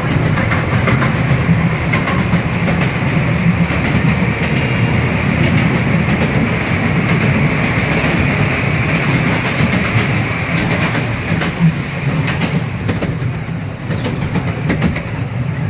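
Currumbin Sanctuary's small tourist train running along its track: a steady rumble with scattered clacks from the wheels on the rails.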